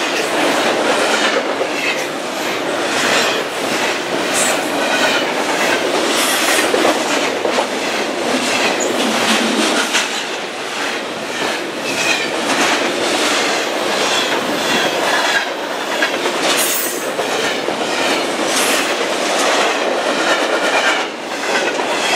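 A CSX double-stack container freight train rolling past close by: a steady loud rumble of the cars with a quick run of wheel clicks over the rail joints, and brief high wheel squeals now and then.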